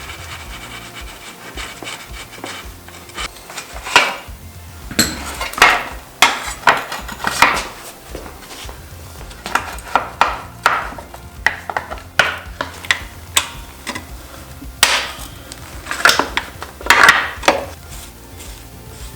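Metal tools and parts clanking and knocking irregularly as a dirt bike is taken apart, with the loudest clanks about four seconds in and again near the end.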